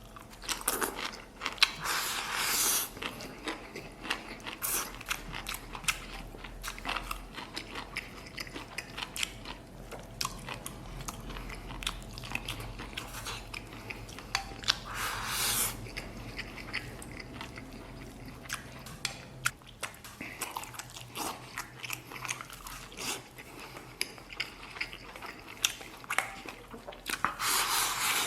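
Close-miked eating of red-braised beef over rice: chewing and biting with many sharp wet clicks, and a few louder noisy bursts near the start, around the middle and near the end.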